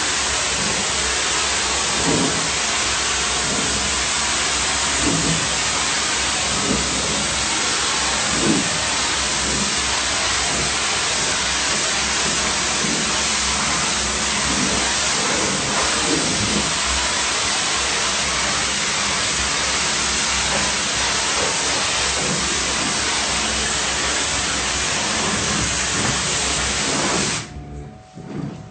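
A DOFF superheated-steam cleaning lance hissing steadily as its jet plays over a smoke-damaged wall. The hiss cuts off suddenly near the end.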